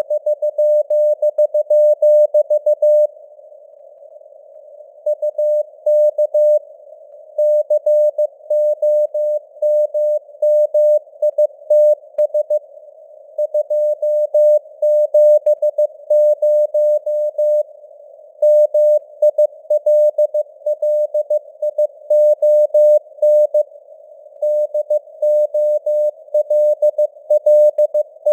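Morse code sent at 15 words per minute as a single mid-pitched keyed tone: rapid runs of dots and dashes, broken by short pauses between words, over a narrow band of simulated radio hiss. The signal strength varies, as with QSB fading on a real band.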